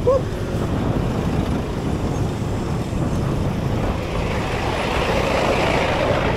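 Dense road traffic heard from a bicycle weaving between vehicles: the steady rumble of car, truck and bus engines mixed with road and wind noise. The noise swells over the last couple of seconds as the bike passes right alongside a bus.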